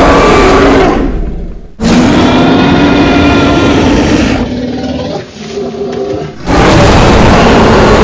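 Custom Tyrannosaurus rex roar sound effect, built from layered animal roars: one roar fades out about a second in, a second loud roar follows, then a quieter growl, and another loud roar starts near the end.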